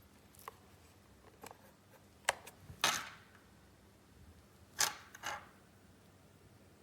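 A few short clicks and scrapes at irregular intervals, with the loudest about three and five seconds in, over a quiet room.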